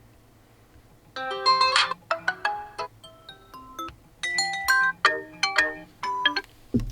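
Redmi Note 12 Pro+ built-in ringtone playing: a melody of short, bright chime-like notes that starts about a second in. A louder, lower tone begins just at the end.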